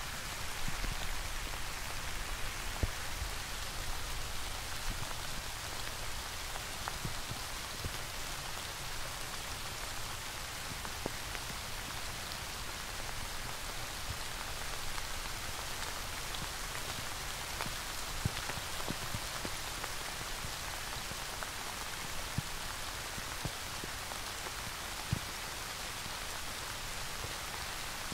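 Steady rain falling: an even, continuous hiss of drops, with a few sharper single drop hits standing out now and then.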